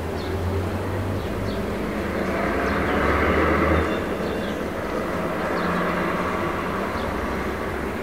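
A motor vehicle passes: a low engine hum and a swell of traffic noise, loudest about three to four seconds in, then easing off. Scattered short bird chirps sound over it.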